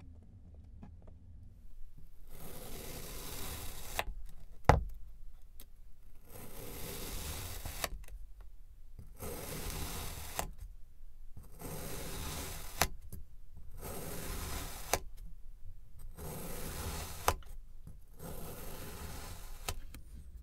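A knife slicing through a block of kinetic sand in about seven slow strokes, each a soft hiss of sand grains lasting a second or two. Several strokes end in a sharp tap of the blade on the surface below, the loudest about five seconds in.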